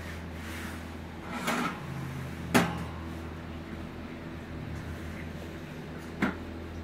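Stainless steel milk jug knocked down onto an espresso machine's metal drip-tray grate: a short swish, then a sharp knock about two and a half seconds in and a second, quieter knock near the end, over a steady low hum.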